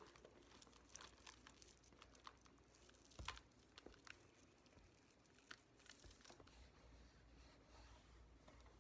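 Near silence with faint scattered rustles and light clicks from a leather handbag being handled; the most distinct click comes about three seconds in.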